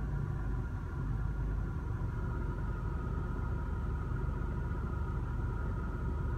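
Car engine idling in reverse gear, heard from inside the cabin: a steady low rumble with faint steady high tones alongside.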